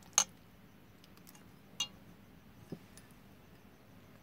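A few short clinks against a stainless steel bowl as a hand mixes thick gram-flour batter, the first and loudest right at the start.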